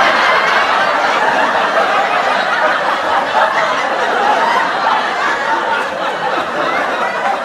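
Sitcom laugh track: a studio audience laughing together, many voices overlapping in a steady, unbroken wash of laughter.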